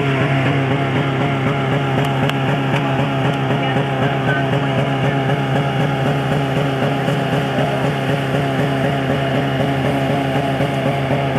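A vehicle engine running at a steady speed, an even low drone that holds unchanged throughout.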